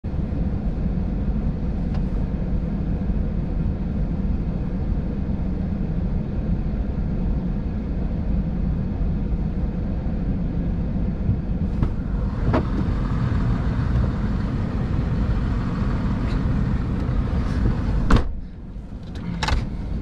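Parked car's engine idling, a steady low rumble heard from inside the cabin. Near the end a sharp click comes and the rumble drops off briefly, followed by a few more clicks.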